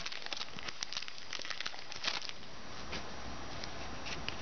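Crinkling and rustling of a trading-card pack wrapper and cards being handled. The crackles are dense for about the first two seconds, then thin out to a few scattered crinkles near the end.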